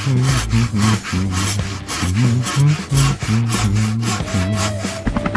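Background music: a bass line stepping between notes under a fast, scratchy, rasping beat of about four strokes a second.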